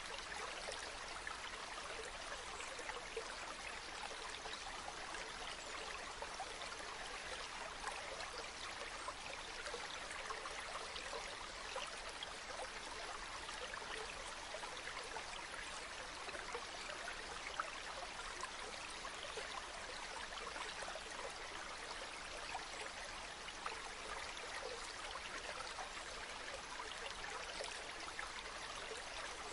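Mountain river stream: water running and burbling over rocks, a steady rush with small splashes flickering through it.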